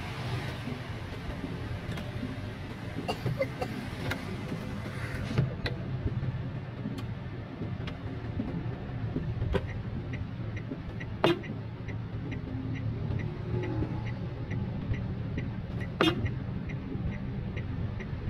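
Inside a Daihatsu car driving on a wet road: steady engine and tyre noise, broken by a few sharp knocks. In the last couple of seconds the turn-signal indicator starts clicking at about three ticks a second.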